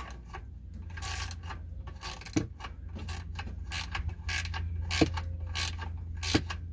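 Socket ratchet turning an oil drain plug back into the oil pan, with irregular clicks and short scraping strokes as the plug is run in and snugged.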